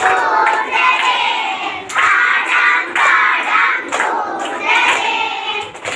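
A large group of children chanting a song together at full voice, clapping in time about once a second.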